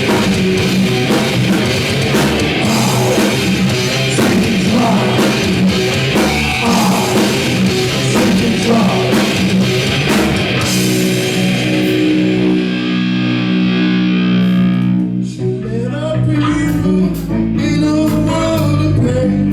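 Live heavy rock band playing loud, with distorted electric guitar, drum kit and vocals. About eleven seconds in, the drums drop away and held guitar chords ring on. A new riff starts near the end.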